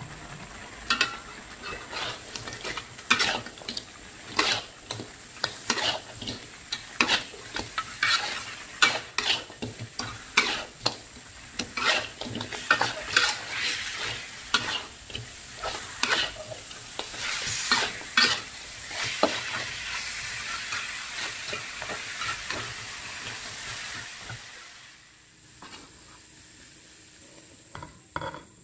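A plastic spatula stirring and scraping catfish pieces in turmeric sauce around a metal wok, with frequent irregular scrapes and knocks over a steady frying sizzle. Near the end the stirring stops and the sound falls away, leaving a few light knocks.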